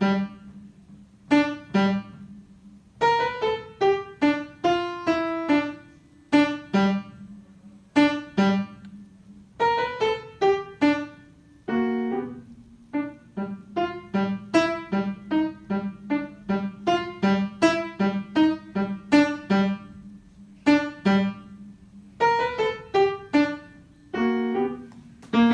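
Piano playing a blues piece: short detached notes and chords over a repeated low note, in phrases with brief pauses between them.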